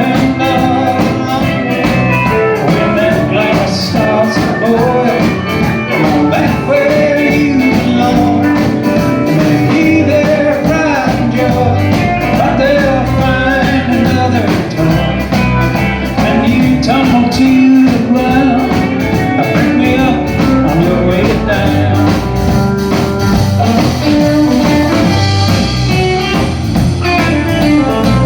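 Live country band playing an instrumental break, guitars over bass and a steady drum beat.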